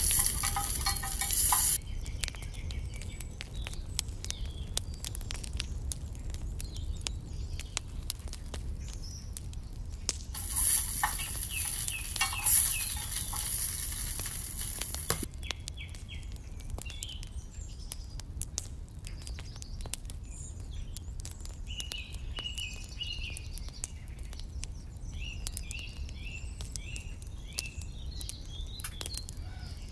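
Sizzling and crackling from a small wood fire under a miniature pot of simmering soup, with sharp pops throughout. Two louder stretches of hissing sizzle come near the start and about ten seconds in. Birds chirp in the second half.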